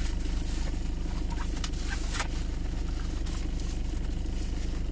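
Car engine idling steadily, heard from inside the cabin, with a few short crinkles of plastic packaging being handled.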